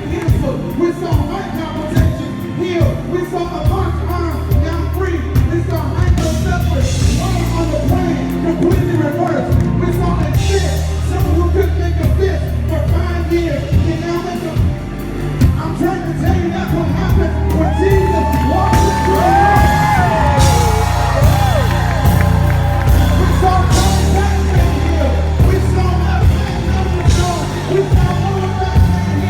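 Live worship music with a heavy bass, a congregation singing, and scattered shouts and whoops from the crowd.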